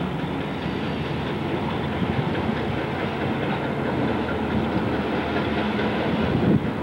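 EMD F7 diesel locomotive, its 16-cylinder two-stroke engine running steadily as it pulls a passenger train slowly toward the listener, growing a little louder near the end.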